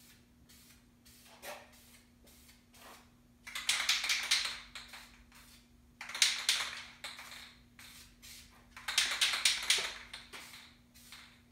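Aerosol spray paint can hissing in three bursts of a second or so each, sprayed onto canvas, with faint short ticks in between over a low steady hum.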